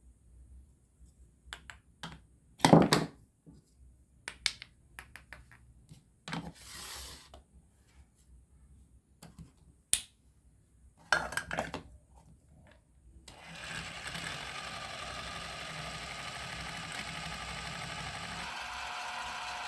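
Scattered clicks and knocks of wooden toy fruit pieces being handled. About two-thirds of the way in, a battery-powered toy stand mixer's small motor starts and runs steadily.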